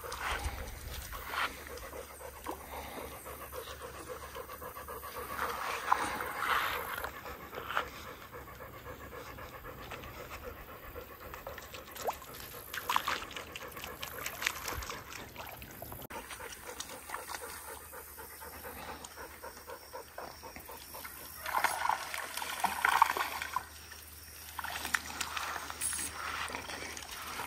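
A dog panting in a few short spells, with quieter stretches between.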